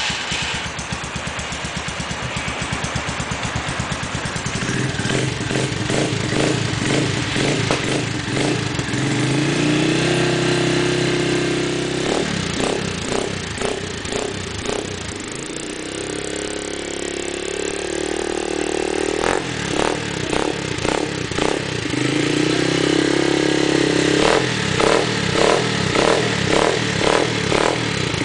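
Motorcycle engine running through a Coyote TRS tri-oval aftermarket exhaust, idling and revved up several times, each time dropping back to a pulsing, uneven idle.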